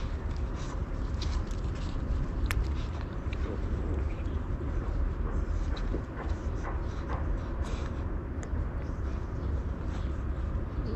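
Two puppies play-fighting, with scattered small clicks and scuffs over a steady low rumble.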